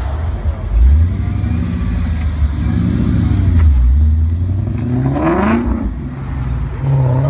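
Car engine running with a deep, steady note, then revving up about five seconds in, its pitch climbing sharply before it falls back.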